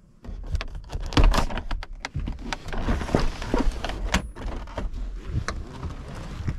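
Quick, irregular clicks, knocks and thunks with rattling in between: the Renault Twingo's fittings being handled and worked.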